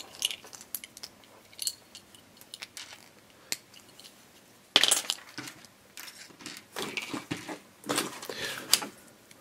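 Small plastic Lego minifigure parts clicking and clattering as they are snapped together and handled, with a sharper clatter about five seconds in.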